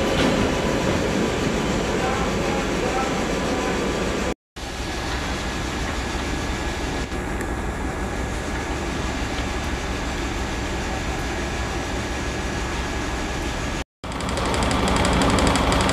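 Steady low rumble and hum of railway rolling stock at standstill or moving slowly. The sound cuts out abruptly twice, about four and a half seconds in and near the end, and is a little louder after the second break.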